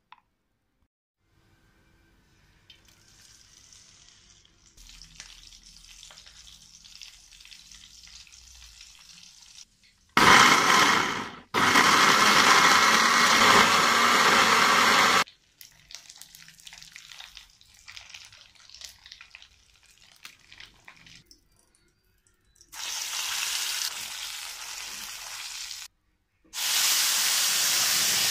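Electric blender running loudly for about five seconds, grinding sambal paste, with a brief break early on. Near the end the blended paste hits hot oil in a pan and sizzles with a steady hiss.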